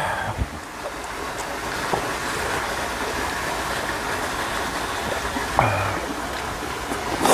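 Steady rushing of water, even and unbroken, with a few faint clicks near the start and a short voice sound about two-thirds of the way through.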